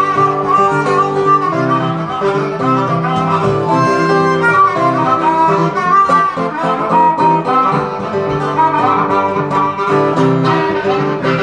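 Acoustic guitar and blues harmonica playing an instrumental blues passage together. The harmonica carries the melody over steady guitar accompaniment.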